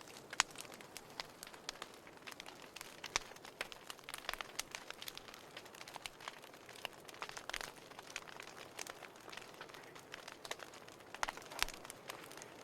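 Fire crackling in a fireplace: irregular sharp pops and snaps, some louder than others, over a soft steady hiss.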